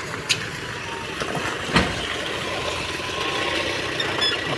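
Steady mechanical hum with two sharp knocks, the louder one just under two seconds in.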